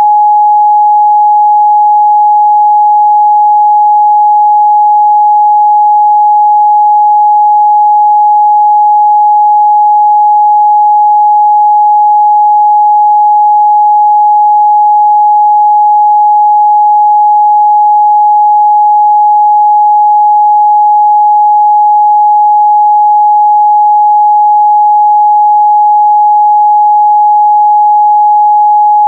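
A steady, loud 838 Hz sine-wave test tone, one pure unchanging pitch held without a break.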